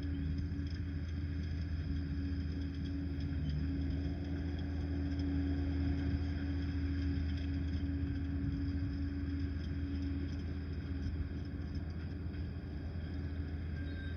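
Liebherr 746 crawler dozer's diesel engine running steadily with a low, even drone.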